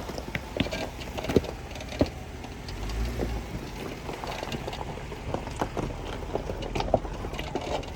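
Jeep Wrangler crawling over a rocky trail: a low steady engine rumble with scattered knocks and rattles, a few of them sharp and loud.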